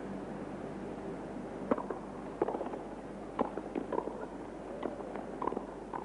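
Tennis rackets striking the ball: a serve about a second and a half in, then a quick doubles rally of sharp pops a fraction of a second to a second apart, over a steady background hiss.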